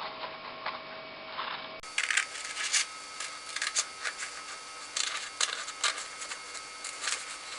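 Scissors cutting through a folded sheet of paper, making a run of short, irregularly spaced snips.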